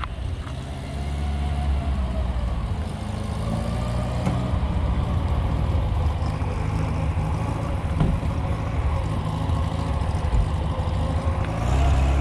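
Car engines idling close by as a steady low rumble, the engine note wavering a little. There are two brief knocks, about four and eight seconds in.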